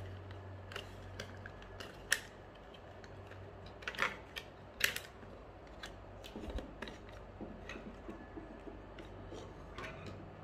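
Sharp plastic clicks and small knocks from the plastic housing and parts of a BV20 note acceptor being taken apart by hand, scattered and irregular, the loudest about two, four and five seconds in.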